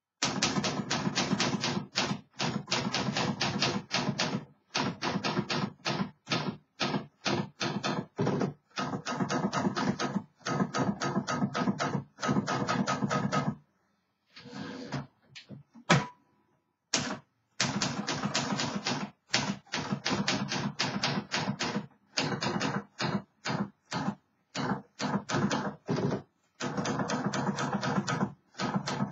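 1956 Remington Quiet Riter manual portable typewriter being typed on: fast runs of key strikes with short breaks between them, and a longer pause about halfway through broken by a few louder single knocks.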